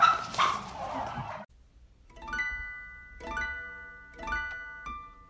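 About a second and a half of rough, noisy field sound, then an abrupt cut to background music: plucked-string chords struck roughly once a second, each ringing and fading.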